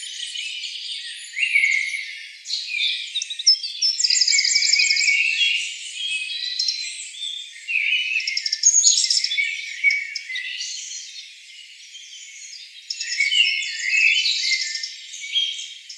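A chorus of small birds singing together: overlapping high chirps, varied phrases and fast trills of repeated notes, rising and falling in loudness.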